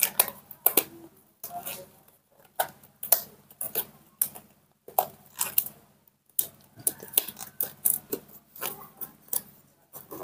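Irregular crinkling and sharp clicking of disposable gloves being handled and pulled on, about two or three crackles a second, with a faint steady low hum underneath.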